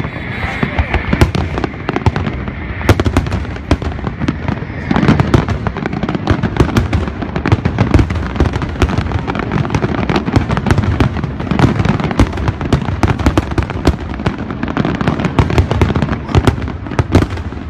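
Dense barrage of aerial firework shells bursting over the sea, many loud bangs a second mixed with crackling.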